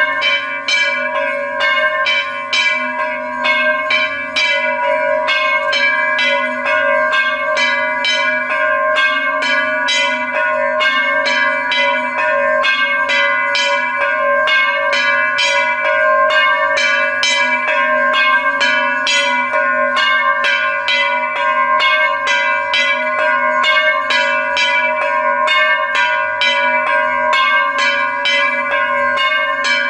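Hindu temple bells rung rapidly and without pause, about three strikes a second, their ringing tones overlapping into a continuous clangour.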